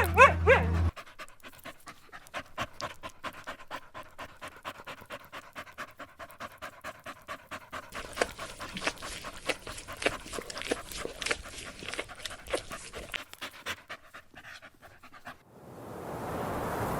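A dog-like canine panting rapidly and steadily, about four or five breaths a second, after a short high call at the very start. Near the end the panting gives way to a steady rushing background.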